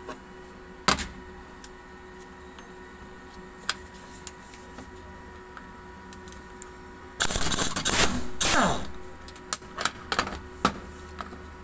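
Pneumatic impact wrench hammering for about a second and a half, about seven seconds in, then winding down with a falling whine as it undoes a bolt on a diesel common-rail high-pressure pump housing. Scattered clinks of metal tools and parts come before and after it.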